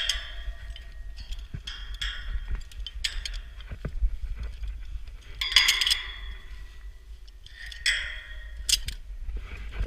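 Steel lanyard snap hooks clinking and ringing against the steel members of a lattice tower as a climber clips from rung to rung, a clank every second or two. Wind rumbles on the microphone underneath.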